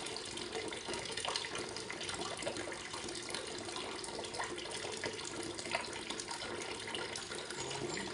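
Tap water running into a sink while freshwater shellfish are rinsed by hand, the shells giving small irregular clicks as they knock together.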